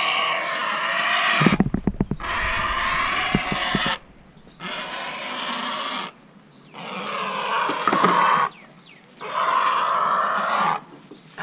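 Great blue heron giving about five long, harsh, raspy squawks one after another with short pauses: distress calls of a bird held down while being freed. A few knocks about a second and a half in.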